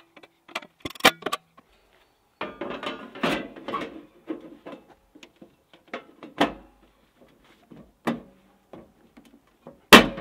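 Clicks and clanks of sheet metal as knockouts are broken out of a breaker panel's steel cover with pliers and the cover is fitted back onto the panel. There is a rattling clatter from about two and a half to four seconds in, and single sharp knocks about a second in, at six and a half seconds, and near the end.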